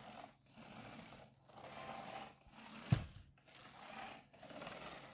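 A man breathing heavily, in and out about once a second, after standing up. There is a single sharp knock about three seconds in.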